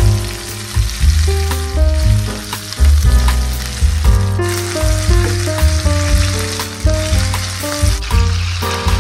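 Chicken breast fillets sizzling in hot oil in a frying pan as they are turned over with spatulas. Background music with a steady bass line plays over the sizzle.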